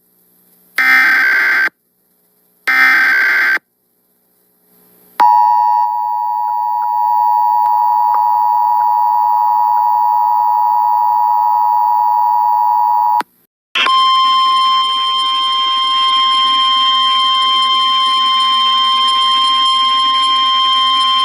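Emergency Alert System tones: two bursts of warbling SAME header data, each about a second long, then the EAS two-tone attention signal held steady for about eight seconds. After a short break comes a single steady alert tone over static, the NOAA Weather Radio warning tone.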